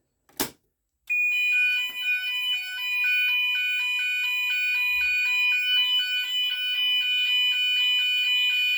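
A manual call point clicks as it is pressed, and about half a second later the GENT Vigilon fire alarm sounders start together: a loud alarm of two steady high tones over a lower two-tone alternating pattern switching several times a second.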